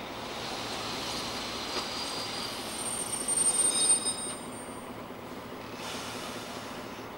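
A railcar running slowly into a station and braking to a stop. A high-pitched squeal rises over its rumble and is loudest about three to four seconds in, as the train slows.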